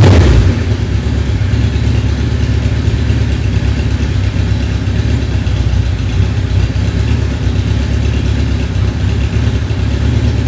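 1979 Suzuki GS1000's air-cooled inline-four engine idling steadily just after starting, the first half second still falling back from a rev.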